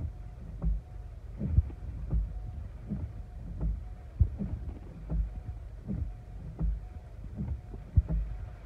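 Wind and rain buffeting a car, heard from inside the cabin: a steady low rumble with irregular low thumps about once or twice a second. A windshield wiper sweeps near the end.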